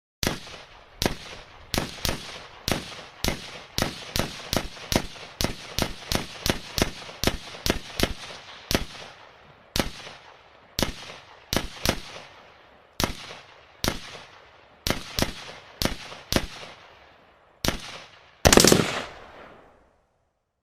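Pistol shots fired one after another, each a sharp crack with a short echoing tail: about one a second at first, coming faster, two or three a second, in the middle, then spacing out again. Near the end comes a single louder, longer blast.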